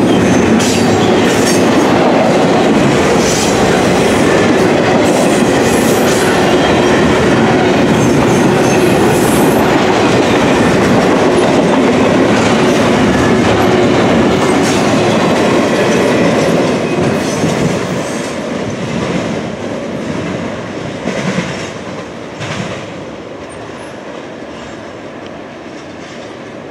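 Double-stack intermodal container cars rolling past, their wheels clattering over the rail joints. The sound fades about two-thirds of the way in as the end of the train goes by, with a few last sharp clicks.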